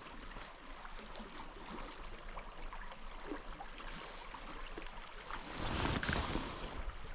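Small creek water running steadily, with a louder rushing, rustling swell about five and a half seconds in that lasts about a second.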